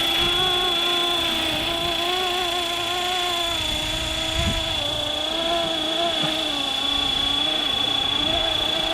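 Small 450-class scale RC helicopter (Fly Wing Bell 206) in flight: a buzzing rotor sound at a steady, slightly wavering pitch, with a steady high whine above it.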